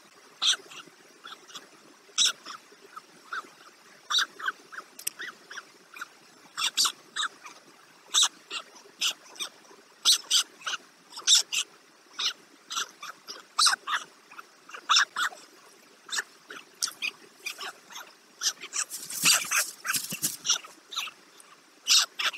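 White stork chicks, soaked and chilled, giving short, high, whining cheeps a few times a second in irregular runs. A short rustle comes a few seconds before the end.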